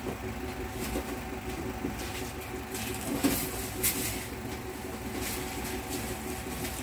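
Scattered light clicks and knocks of battery cables, terminals and hand tools being handled, about five over several seconds, over a steady low hum in the room.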